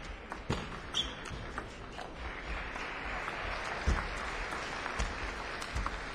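Table tennis rally: sharp clicks of a celluloid ball striking bats and table, roughly every half second to a second, over arena crowd noise that swells from about two seconds in.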